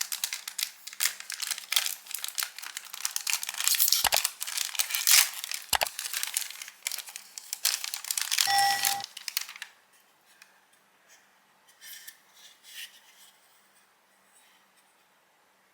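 Plastic packaging crinkling and tearing as an SSD is unwrapped, dense and crackly for about nine seconds, with two low knocks and a brief pitched squeak near the end of it. Then it goes mostly quiet apart from a few faint rustles.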